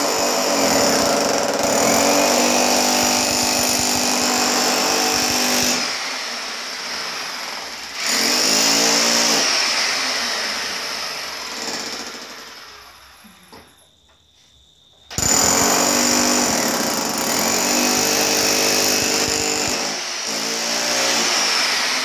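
Corded electric jackhammer chiselling into a concrete floor and breaking it up. It runs in spells: it stops about six seconds in and starts again two seconds later, dies away around twelve to thirteen seconds in, then starts again about fifteen seconds in.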